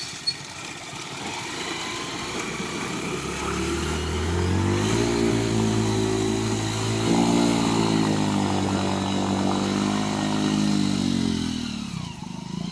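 Small motorcycle engine under load, its pitch and loudness climbing over the first few seconds, then held fairly steady before easing off near the end.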